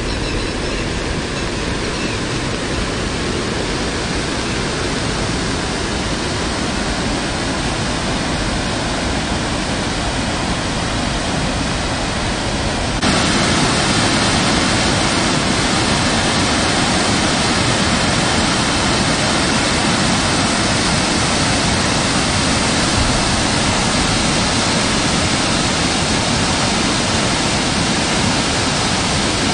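Floodwater from heavy rain pouring over a stepped weir: a steady rushing of water, with no pauses. About halfway through it becomes abruptly louder and holds there.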